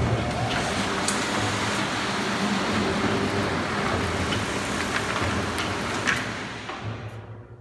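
Loud steady rushing noise from shop machinery, starting suddenly and dying away over the last second or so.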